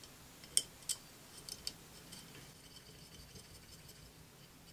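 Small metal clicks and clinks as the copper pipe of a pressure gauge is fitted and threaded onto a brass fitting on a miniature steam boiler: four or five sharp clicks in the first two seconds, then fainter ticking.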